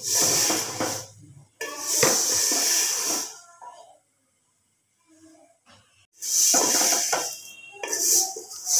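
Wooden spoon stirring vermicelli as it fries in oil in an aluminium pot: a hissing sizzle and dry rustle that comes in spells, with a near-silent break about four seconds in.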